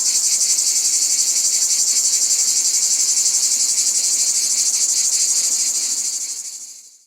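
Cicadas buzzing: a loud, high, steady drone with a rapid pulsing, fading out to silence about six to seven seconds in.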